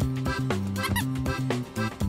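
Upbeat background music with a steady beat, including a quick rising note about a second in.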